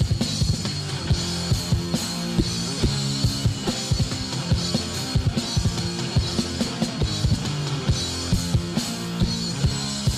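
Hardcore punk band playing an instrumental passage: a fast, busy drum kit beat under distorted electric guitar and bass, with no vocals.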